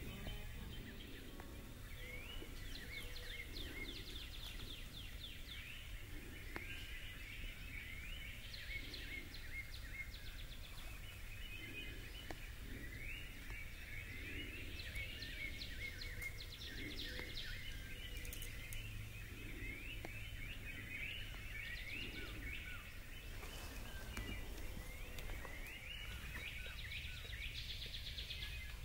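Dawn chorus of songbirds, many short chirps and songs overlapping without a break, over a faint steady low rumble of background noise.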